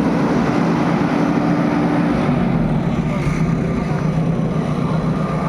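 Bulldozer's diesel engine running steadily under a crowd's background chatter, its engine note dropping lower about two seconds in.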